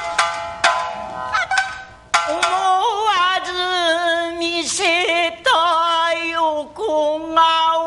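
Rōkyoku singing: a woman's voice chanting long, wavering held notes with shamisen accompaniment. The shamisen plays alone with sharp plucked strokes for the first two seconds before the voice comes in.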